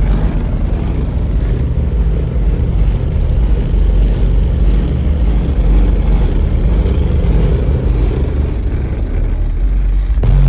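Deep, loud bass from two Fi BTL N3 18-inch subwoofers driven with about 8,000 watts in a ported box tuned to 32 Hz, playing music at demo level so that the low notes swamp everything else. About ten seconds in, the sound thins and the higher parts of the music come through again.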